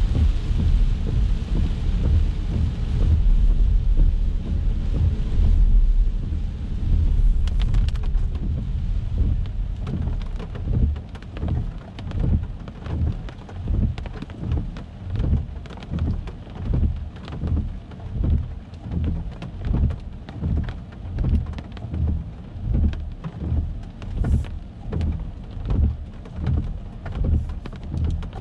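Car driving on a rain-wet road, heard from inside the car: a steady tyre-and-road rumble with rain hiss that falls away after about eight seconds. After that comes a rhythmic low thump of the windshield wipers, about once a second, with raindrops ticking on the car.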